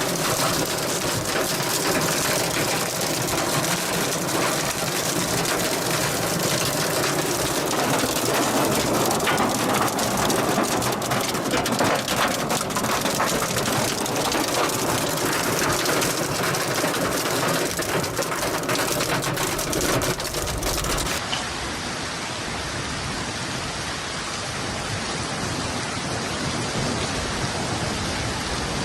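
Hailstorm: a dense, rapid clatter of hailstones striking over the roar of heavy rain. About two-thirds of the way in it cuts abruptly to a smoother, slightly quieter steady downpour.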